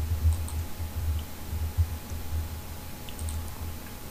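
A few faint computer mouse clicks over a steady low hum.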